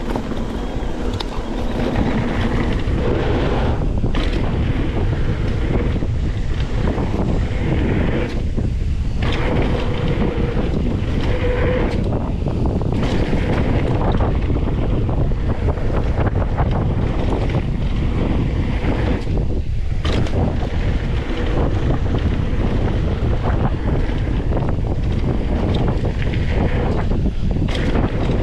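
Heavy wind buffeting the microphone: a loud, steady rush that dips briefly a few times.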